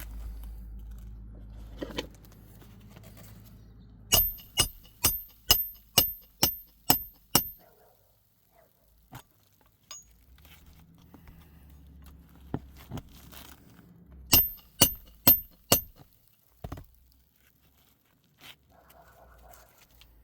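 Sharp metallic taps, each with a brief high ring: a run of eight at about two a second, then four more about ten seconds later.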